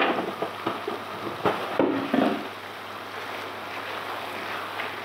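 Several knocks and scrapes of a spoon against a cooking pot over the first two seconds or so, then a steady hiss of a courgette curry cooking on a high gas flame.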